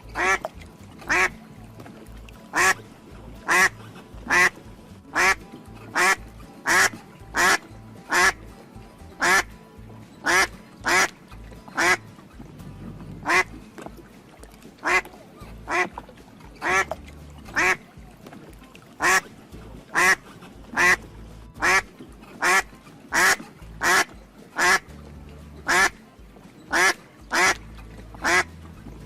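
Duck quacking over and over, short loud quacks coming about one to two a second, sometimes in quick pairs, over faint background music.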